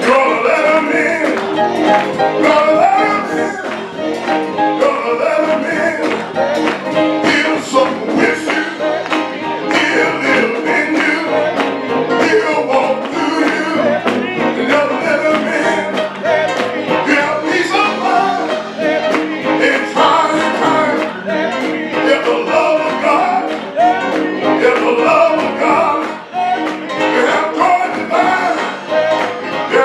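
Gospel music with singing over instrumental accompaniment, playing steadily throughout.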